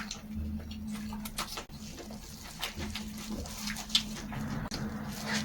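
Close-up eating sounds: a person chewing a mouthful of rolled pancake wrap, with irregular wet smacks and crackles and one sharper click about four seconds in, over a steady low hum.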